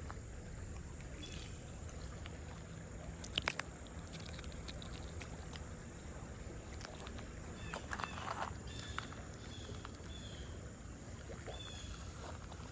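Faint outdoor ambience: a steady low rumble, with a few sharp clicks about three and a half seconds in and short high chirps later on.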